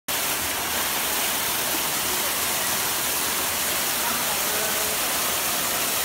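Waterfall cascading down a series of rock steps: a steady, even rush of falling water.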